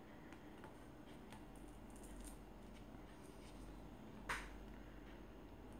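Quiet handling sounds of beadwork on a rubber flip-flop strap: a needle and nylon thread drawn through plastic beads give faint scattered ticks, with one sharper click about four seconds in.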